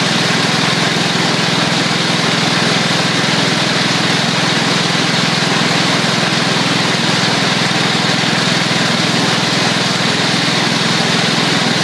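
Massey Ferguson MF10 garden tractor engine running steadily at half throttle through its old muffler, loud at about 93 decibels on a sound level meter.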